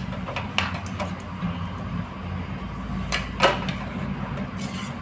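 Metal cookware being handled: a few knocks and clinks, the loudest about three and a half seconds in, over a steady low hum.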